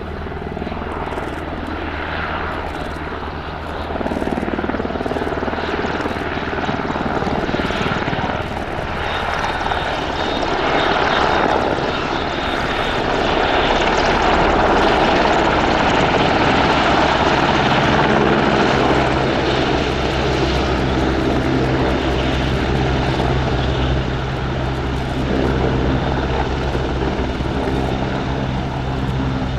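Military helicopter's rotor and turbine engines running. There is a steady low hum throughout, and the rush of noise grows louder from about four seconds in, peaking around the middle. A steady hum of several pitched tones comes in during the second half.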